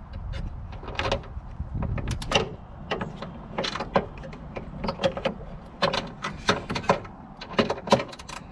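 Socket ratchet clicking in repeated short runs as it works the 13 mm hood-latch bolt loose.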